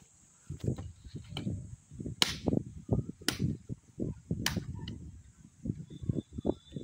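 Irregular low thumps and rustling from a phone being handled and carried while walking on outdoor ground, with three sharp clicks about two, three and four and a half seconds in. A steady high insect drone runs underneath.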